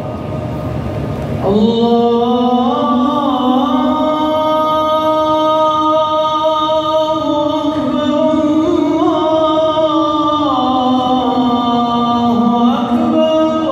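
A muezzin's voice calling the adhan, the Islamic call to prayer. He sings long, drawn-out notes with ornamented turns in two long phrases, starting about a second and a half in, with a breath between them about eight seconds in.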